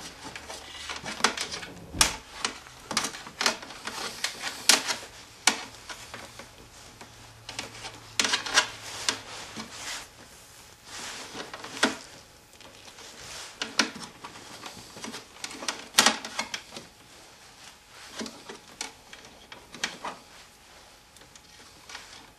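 Hands working wiring under a snowmobile hood: scattered irregular clicks, taps and rustles of plastic and wire, as a nylon zip tie is pulled tight to bundle the wires.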